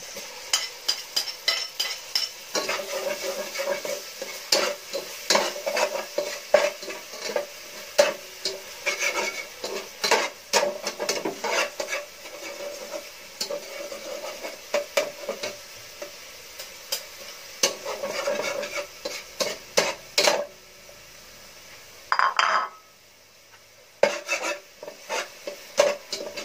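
Chopped onion and garlic sizzling in hot oil in a pot. A metal slotted turner scrapes and clicks against the pot over and over as they are stirred. The sound drops away briefly a few seconds before the end.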